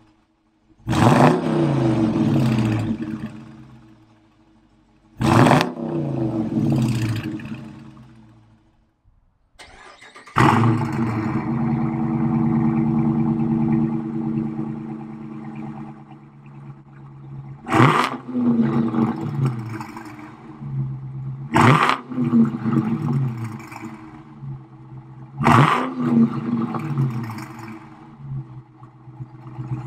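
Car engine and exhaust: two sudden loud flares in the first few seconds, each falling in pitch and dying away. About ten seconds in, another flare settles into a steady idle, broken near the end by three sharp rev blips about four seconds apart, each dropping back to idle.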